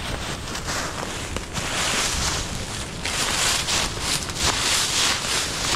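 Dry oak leaf litter crunching and rustling underfoot, a dense rustle that grows louder about a second and a half in and again at three seconds.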